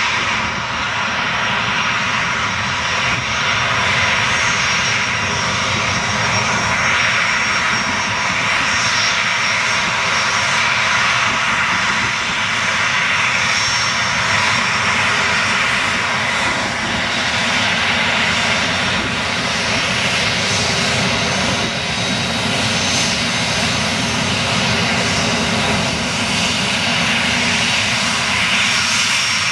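Boeing 737-300's CFM56-3 turbofan engines running at taxi power as the airliner taxis and turns: a steady rush with a thin high whine on top.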